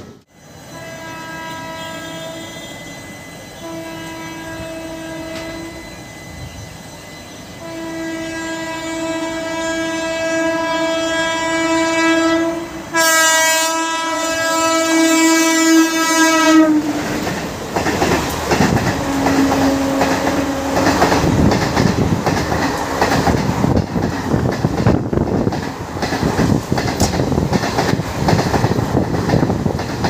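Indian Railways electric locomotive horn sounding four long blasts, the last one loudest and shrillest. An express train then passes at speed, with the rumble and clickety-clack of coach wheels over rail joints.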